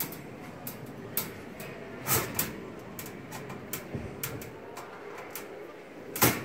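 Wire show cage clinking and rattling as a hand reaches between its metal bars to pet the cat: scattered sharp clicks and knocks, a pair about two seconds in and the loudest about six seconds in, over a low steady background.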